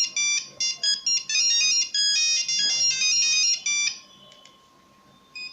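Nokia 1100 monophonic ringtone playing: a fast melody of beeping single notes that stops about four seconds in.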